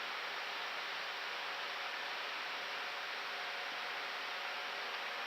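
Steady rushing cockpit noise of an Airbus A319 in climb: airflow and air-conditioning hiss with a faint steady hum under it.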